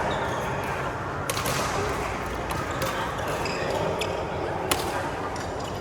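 Badminton rackets striking a shuttlecock in a rally: a handful of sharp, short cracks at uneven intervals over steady background noise.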